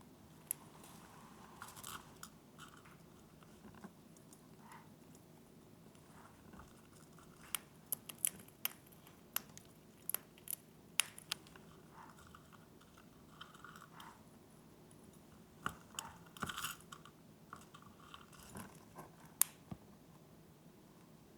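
Grey-breasted parakeets (Pyrrhura griseipectus) nibbling treats with their beaks: quiet, irregular crunches and sharp little clicks, bunched in a few short flurries.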